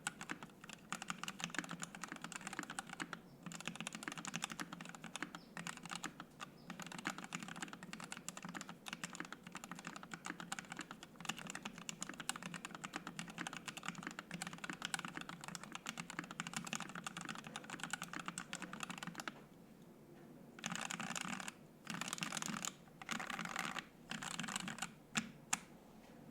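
Fast typing on a Savage65 mechanical keyboard fitted with Ink Black V2 linear switches on an FR-4 plate, with PBT keycaps: a dense, even stream of keystrokes. Near the end it pauses briefly and then comes in a few short flurries.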